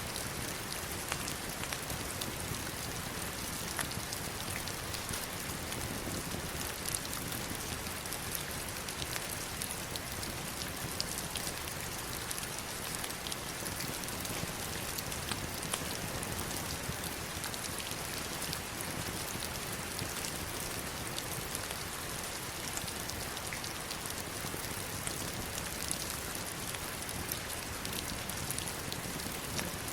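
Heavy rain falling on stones and running water: a steady, even hiss with many scattered sharp drop hits.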